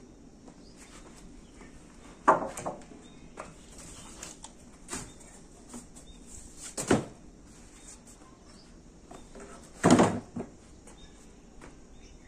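Bamboo pole, wooden planks and cardboard sheets being handled and set down on a concrete roof: three loud wooden knocks and clatters about two, seven and ten seconds in, the last the longest, with lighter rustles and taps between.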